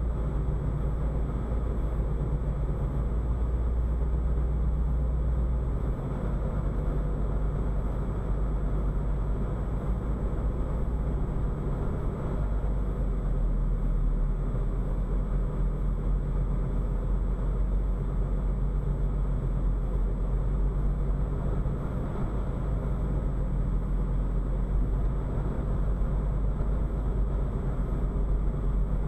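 Car driving at steady speed, heard from inside the cabin: a steady low rumble of engine and road noise, its deepest tone shifting about six and again about twelve seconds in.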